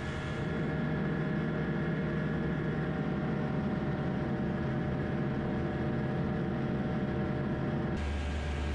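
DynAero MCR01's piston engine and propeller droning steadily during a climb, heard inside the cockpit, with a row of steady engine tones over a noisy hum. The drone gets slightly louder about half a second in, and its tone changes abruptly near the end.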